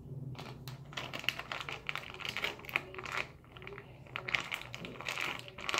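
Sticky glitter slime being squeezed and stretched by hand, giving a rapid run of small clicks and pops.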